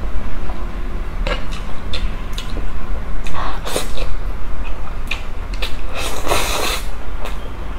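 Close-up eating sounds: noodles slurped up off a fork twice, about three and six seconds in, with wet chewing clicks and the fork tapping the tray between, over a steady low rumble.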